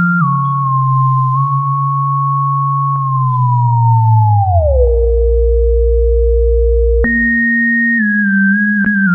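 Studiologic Sledge 2.0 synthesizer playing a thin, whistle-like lead tone over a low note. About three seconds in, both glide slowly down and hold low, then jump back up high around seven seconds in and step between nearby notes.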